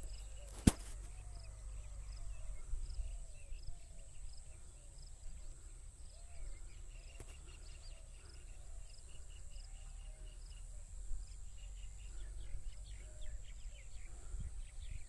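Birds calling and chirping outdoors, many short repeated calls over a steady low background rumble. A sharp click about a second in.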